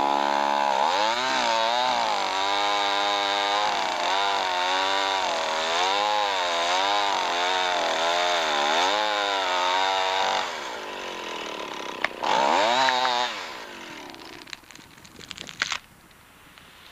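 Two-stroke chainsaw cutting into a tree trunk under load, its engine pitch rising and falling repeatedly as it works the cut. About ten seconds in it drops off, revs up again briefly, then fades, followed near the end by a quick run of sharp cracks as the tree begins to give way.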